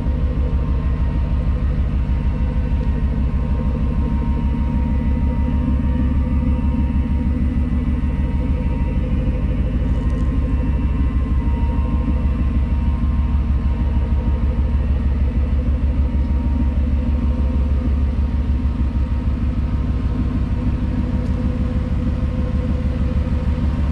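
Ford 5.0 L DOHC Coyote V8 crate engine idling steadily in a 1975 Ford Bronco: an even, low rumble with no revving.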